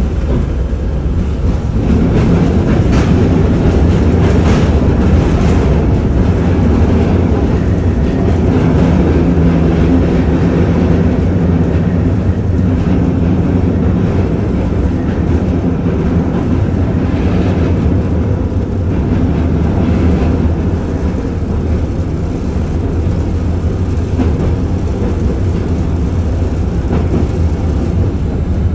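LM-99AVN tram in motion, heard from inside the car: a steady rumble of wheels on rails and running gear, with a low hum under it.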